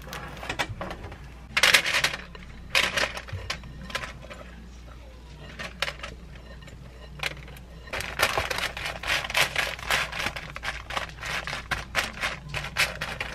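Dry granola clusters rustling and clattering as they are poured from a bowl onto parchment paper and spread with a silicone spatula, with the paper crinkling. A few separate rustles come early on the way, and a dense run of crackly scraping fills the second half.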